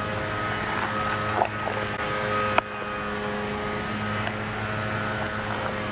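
Steady background hum, with a few short clicks of a spoon against a bowl as slime is stirred. The sharpest click comes about two and a half seconds in.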